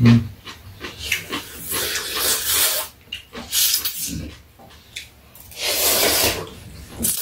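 People slurping thin wheat noodles (janchi guksu) from their bowls: three long, hissing slurps with softer eating noises between. A low thump sounds right at the start.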